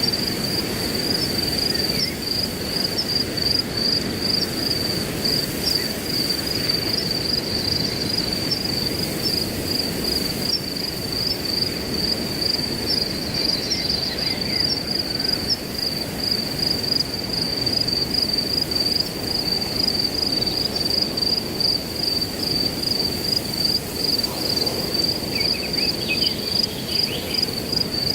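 Crickets chirping in a steady, high, pulsing trill over wind rustling through grass, with a few faint bird calls near the end.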